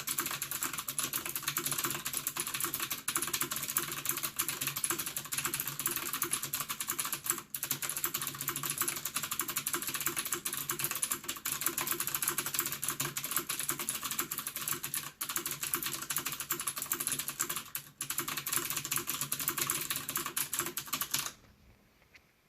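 Fast, continuous typing on a Ducky Shine 6 mechanical keyboard with Cherry MX Blue clicky switches: a dense run of key clicks with a few short pauses, stopping suddenly near the end.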